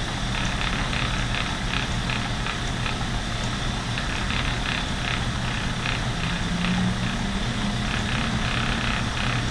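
Lendrum spinning wheel running fast on its small high-speed flyer while fine yarn is spun: a steady mechanical whirr and hum with a light regular ticking about three times a second.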